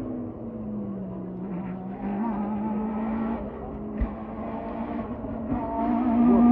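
Rally car engine heard at a distance, its note dipping and rising with gear changes and growing louder near the end. One sharp crack about four seconds in.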